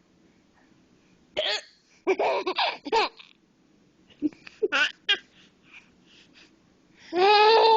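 A woman hiccuping, short sharp catches every few seconds, while a baby laughs at them; near the end comes a long, high squeal.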